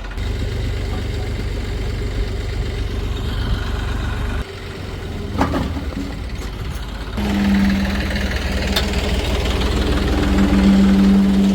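Diesel engine of heavy machinery running and working, with abrupt changes in the engine sound about four and seven seconds in. There is a brief knock about five and a half seconds in, and after the second change a steady engine hum that grows louder.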